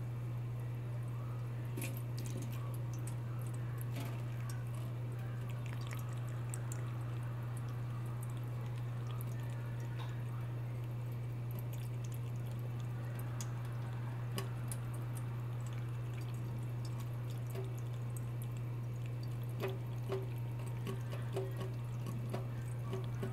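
Thin stream of water from a kitchen faucet trickling into a stainless steel sink, with scattered small drip ticks, over a steady low hum.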